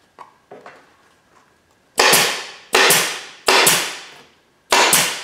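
Air stapler firing four quick shots, each a sharp crack that trails off, driving 9/16-inch T50 staples through carpet into a plywood panel. Faint handling clicks come before the shots.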